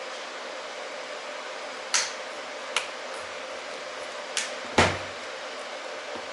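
Four short, sharp clicks and taps from handling the netbook, the last the loudest, over a steady hiss and faint hum.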